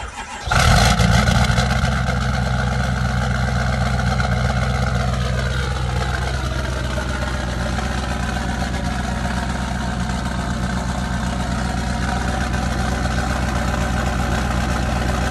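Ford 6.7 Powerstroke V8 turbo-diesel with a big non-VGT turbo firing up on a cold start in zero-degree weather, catching about half a second in and settling into a steady idle. A higher whine glides down in pitch about five seconds in.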